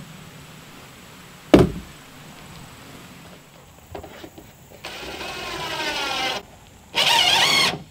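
A single sharp knock, then a tape measure blade pulled out with a wavering whir and run back, the second pull louder near the end.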